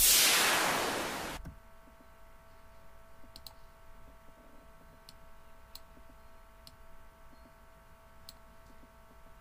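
A loud synthesized white-noise effect, made with a 3x Osc oscillator and an automated parametric EQ, fades out over the first second and a half. It is followed by about five soft computer-mouse clicks over a faint steady electrical hum.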